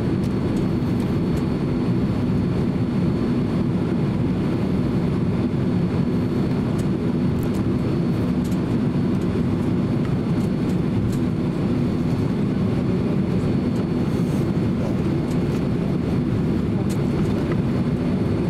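Cabin noise of a Boeing 767-300 taxiing: a steady low rumble from the jet engines at idle and the airframe rolling along the taxiway, with a thin, faint high tone over it.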